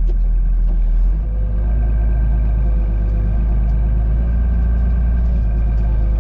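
A farm machine's engine running steadily: a loud low rumble with steady tones over it, its pitch shifting slightly about a second in.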